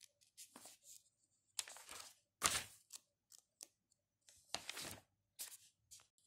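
Pages of a paperback book being turned and smoothed by hand, a string of short papery rustles and swishes from its thick, stiff pages.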